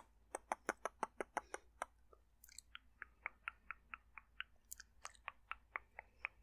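Close-miked dry mouth sounds: a fast run of sharp tongue and lip clicks, a brief pause about two seconds in, then another steady run of clicks.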